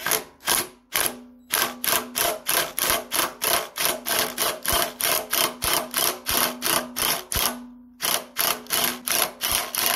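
Craftsman cordless impact wrench hammering on a bearing puller's forcing screw, rapid sharp strokes about three a second over a steady motor hum, pausing briefly about a second in and again near the end. The puller is being driven to press off a seized belt pulley.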